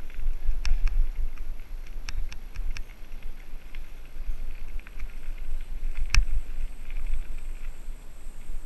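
Mountain bike riding down a dirt trail: wind rumbling on the microphone, with scattered clicks and rattles from the bike over rough ground and a sharper knock about six seconds in.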